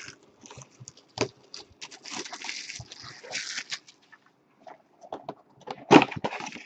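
Hands unwrapping and opening a cardboard trading-card box: plastic wrap crinkling and cardboard scraping in scattered short bursts. The loudest burst comes about six seconds in, as the inner box is pulled up out of the outer one.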